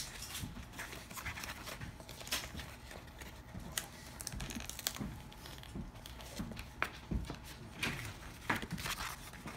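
Irregular light clicks, taps and rustles of cardstock and craft items being handled on a wooden table.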